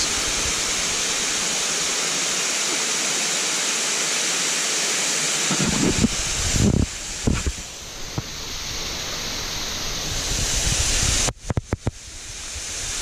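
Berry Creek Falls waterfall rushing: a steady spray of water pouring down a sandstone face, heard close up. A few low bumps on the microphone come around the middle, and the sound drops out briefly several times near the end.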